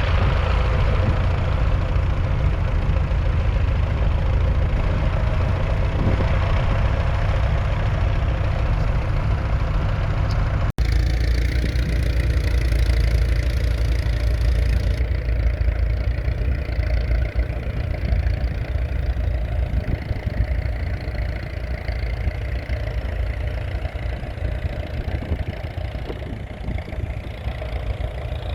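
1981 Leyland 802's 3.8-litre four-cylinder diesel tractor engine running steadily, with a momentary break about eleven seconds in.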